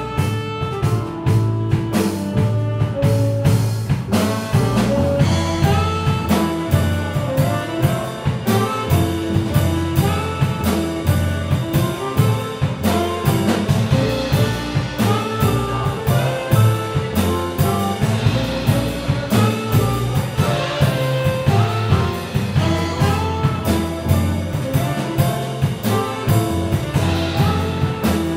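Live jazz quartet of tenor saxophone, piano, double bass and drum kit playing an original tune, the bass notes and drum hits running under the melody.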